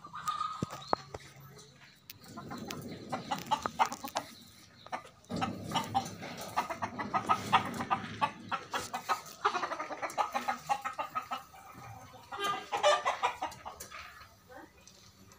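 Domestic fowl clucking in several bouts of rapid calls, with quieter gaps between them.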